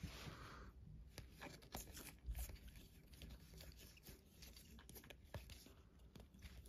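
Faint rustling and soft clicks of a stack of chrome Prizm football cards being flipped through in the hands, one card slid off the front at a time.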